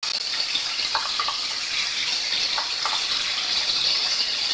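Oil sizzling steadily under stuffed baby brinjals frying in a pan, with a few light clicks of a spoon scraping masala out of a bowl.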